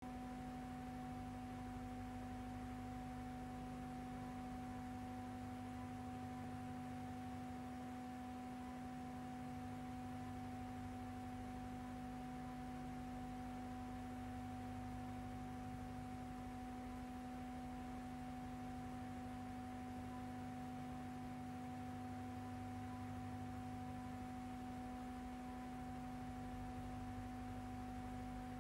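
Steady electrical hum of a few fixed tones held unchanged over faint hiss, with no other sound: the soundtrack of a silent film transfer.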